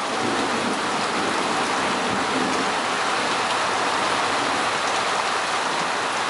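Thunderstorm rain falling steadily, an even, unbroken hiss of rain on surfaces.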